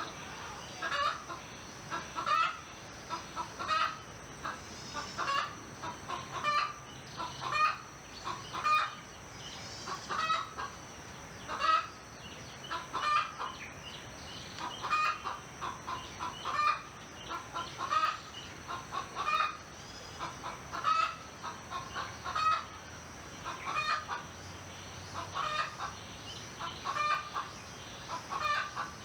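Domestic chickens clucking in short calls, repeating about once a second, over a faint steady high-pitched hum.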